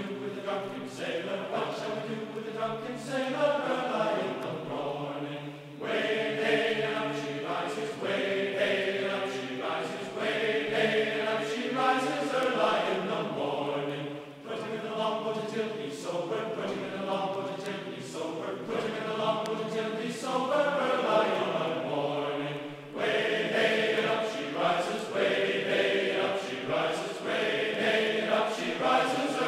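Background music of choir-like chanting voices in slow, sustained phrases.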